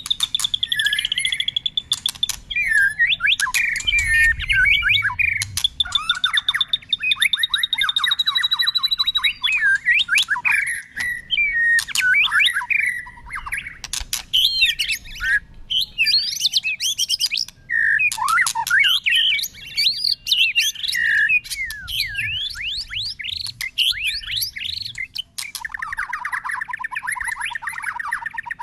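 White-rumped shama singing a long, unbroken song that keeps changing phrase: clear whistles, some held for a second or two, mixed with quick chattering notes. A fast rattling trill takes over near the end.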